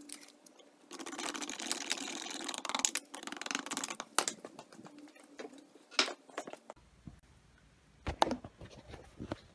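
Red-hot cast brass slab cooling in a clay-walled open mould, crackling densely for about three seconds and then giving off scattered sharp ticks and pops, two of them loud.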